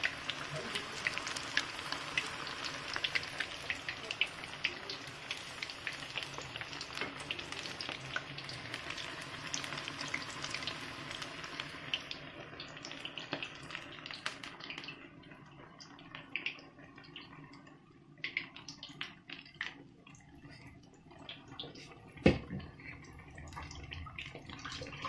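Battered cauliflower pakoras deep-frying in hot oil in a kadai, a dense sizzle and crackle that thins out about halfway through into quieter, scattered pops. One sharp knock near the end.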